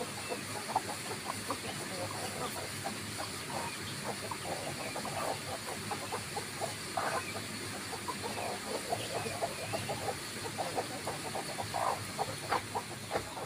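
Free-range chickens clucking softly in quick, short notes as they forage, with a few faint high chick peeps.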